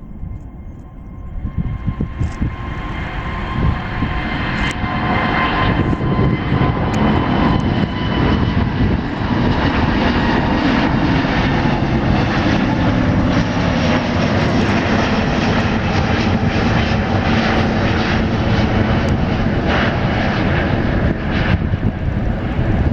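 Airbus A380's four Rolls-Royce Trent 900 turbofans at takeoff power. The deep jet rumble builds over the first several seconds, then holds loud and steady as the airliner climbs out.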